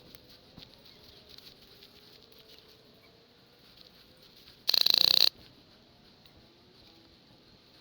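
A short burst of full-auto airsoft gunfire: a rapid string of shots lasting about half a second, a little under five seconds in, over a quiet background.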